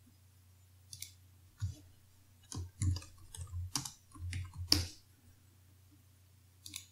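Typing on a computer keyboard: a quick run of irregular key clicks lasting a few seconds, then a pause and a couple of faint clicks near the end.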